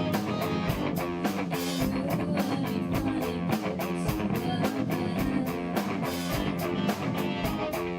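Live rock band playing with a steady drum beat, electric guitar and bass guitar.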